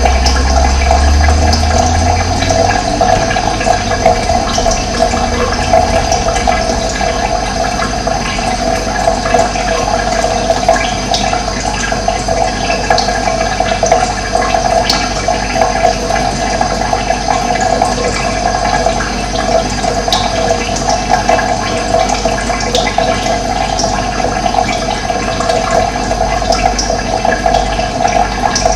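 Steady sound of running water, a continuous rushing flow. There is a low rumble in the first few seconds.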